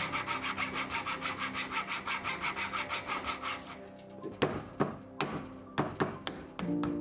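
Thin-bladed hand saw cutting kerfs into a tassie oak hardwood blank, fast even rasping strokes about five a second. After about four seconds the sawing stops and a run of sharp cracks and taps follows as a chisel breaks out the wood between the cuts. Soft background music underneath.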